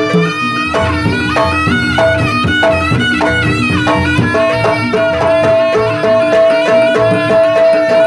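Live Javanese jaranan ensemble music: a reedy wind melody moves over drums and steady held tones, one of which sounds continuously from about halfway through.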